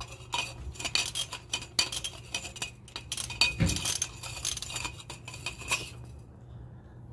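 Socket ratchet clicking in quick runs with metallic clinks while loosening the connecting-rod cap nuts of a MerCruiser 3.0 L engine. The clicking stops about six seconds in.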